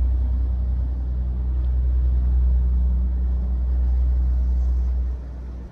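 Deep, steady rumble of a large passing motor yacht's engines, dropping away abruptly near the end.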